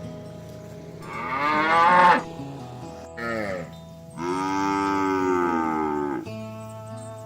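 Cattle mooing: three calls, a rising one about a second in, a short one, then a long moo lasting about two seconds, over background music.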